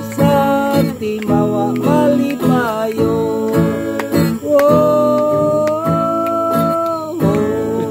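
Acoustic guitar strummed as accompaniment to a sung folk song, the voice holding one long note from about halfway through until near the end.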